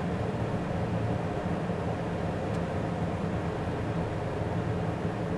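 Steady engine and airflow noise inside the cockpit of a jet on final approach, with the landing gear down and flaps out.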